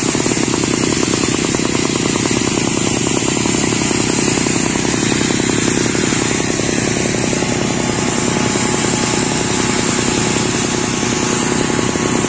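Rock drill hammering steadily and rapidly as it bores a hole into the rock face for a self-drilling rock bolt (SDA anchor).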